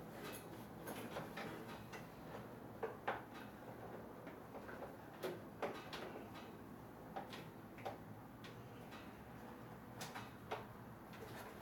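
Irregular small clicks and knocks of hands working rubber vacuum hoses and their fittings in a car's engine bay, over a faint steady low hum.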